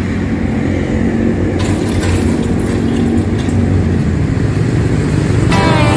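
A motor engine running steadily with a low rumble. Music comes in near the end.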